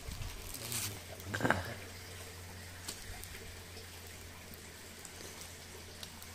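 Wood campfire crackling, with scattered small pops and a hissing haze, and a brief louder sound about one and a half seconds in.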